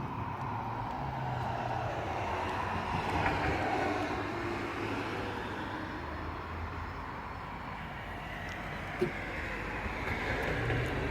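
Distant engine noise from passing traffic, swelling and fading slowly, with a single faint click about nine seconds in.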